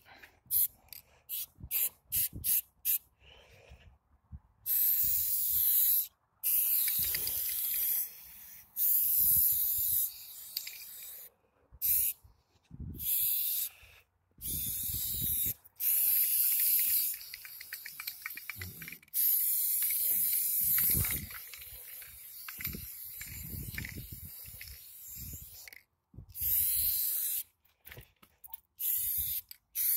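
Aerosol spray-paint can spraying in repeated hissing bursts of one to two seconds with short breaks between, as a throwup's fill is painted. In the first few seconds, a quick rattle of separate ticks, typical of the can's mixing ball as it is shaken.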